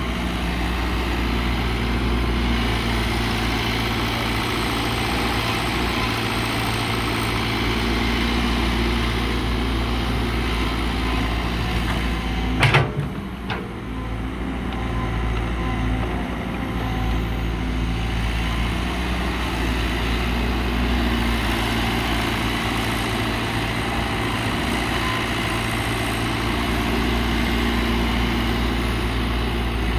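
Caterpillar 312 hydraulic excavator's diesel engine running steadily as it digs earth and swings to load a dump truck. Two sharp knocks come close together a little before halfway.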